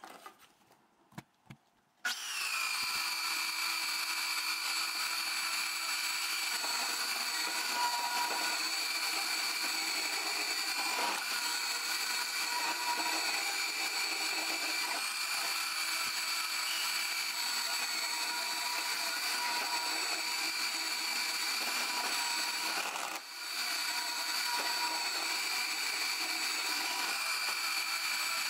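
A few small clicks, then about two seconds in a vertical metal-cutting bandsaw starts and runs steadily with a high whine as its blade cuts through a steel flat bar. The sound dips briefly about three-quarters of the way through.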